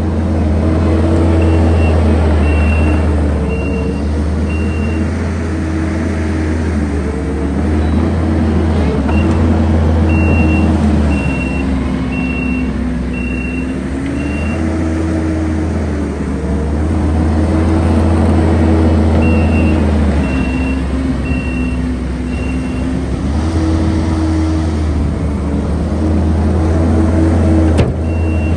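Kubota SVL75-2 compact track loader at work: its diesel engine running under load, the revs rising and falling, while its backup alarm beeps in several spells of steady, evenly spaced beeps as it reverses.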